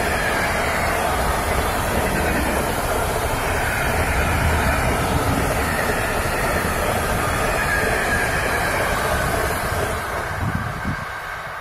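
Container freight train's wagons rolling past close by: a steady rumble of steel wheels on rail with a faint wavering whine, fading near the end as the last wagons pass.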